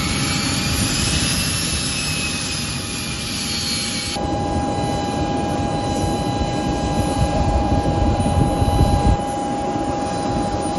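Air ambulance aircraft's engines running: a steady whine over a rumble, with a tone that slides up and back down over the first four seconds. The sound changes abruptly about four seconds in, then holds steady tones.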